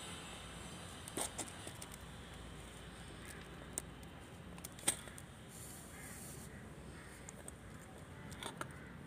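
Quiet handling of a dried cardamom-pod garland on a stainless steel plate: scattered light clicks and taps of pods and fingers, the sharpest about a second in and near the middle. Faint animal calls sound in the background.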